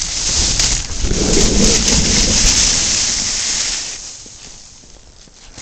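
Snowboard sliding over snow with a loud hiss, with wind rumbling on the microphone; it dies down about four seconds in.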